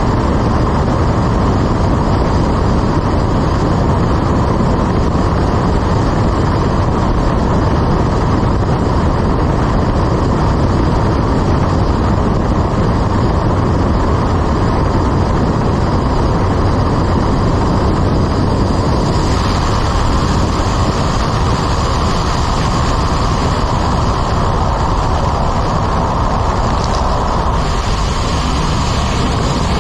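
A light propeller aircraft's engine drones steadily with air rushing past on final approach to a steep grass airstrip. The sound shifts about two-thirds of the way through. Shortly before the end it changes again as the aircraft touches down and rolls out, its propeller kicking up dust.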